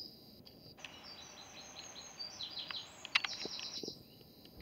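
Small birds chirping and singing faintly, with a quick run of rapid high repeated notes a little after three seconds in.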